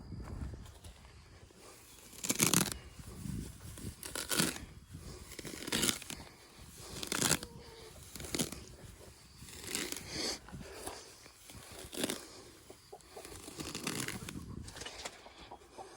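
Handfuls of grass and weeds being pulled up by the roots, a tearing, rustling rip repeated about every one and a half to two seconds.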